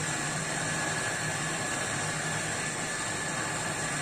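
Steady background hum and hiss, with a low drone and a faint high whine held throughout.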